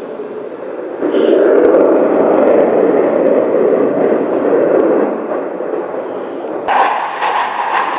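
Jet noise from a Eurofighter Typhoon's two turbofan engines in a flying display, a loud rumbling roar that swells about a second in and eases after about five seconds.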